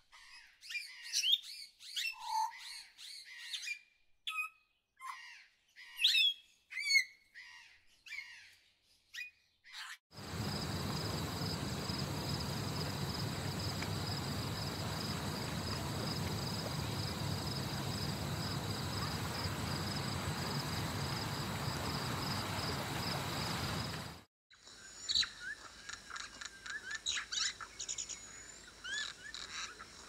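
Wild birds calling, with assorted chirps, whistles and short sliding calls. About ten seconds in, a steady even hiss with a continuous high whine takes over for roughly fourteen seconds and cuts off suddenly. Then bird chirps return over a faint high whine.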